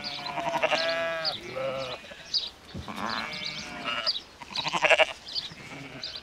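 Sheep and lambs of a flock bleating, several calls one after another, each a short wavering bleat.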